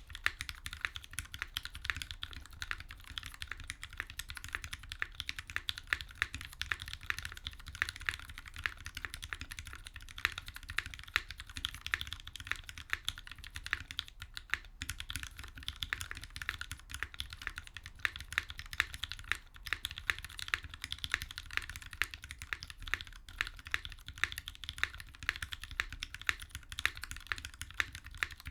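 Continuous typing on a Duck Viper V2 mechanical keyboard. Its Gateron Black Ink linear switches are lubed with Krytox 205g0 and sit in a stainless steel plate with no sound dampening, under GMK Space Cadet keycaps. The keystrokes run densely, with a brief pause about halfway through.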